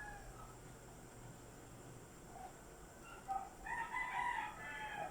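Rooster crowing: a couple of short notes about two and a half and three and a half seconds in, then a longer crow lasting over a second near the end.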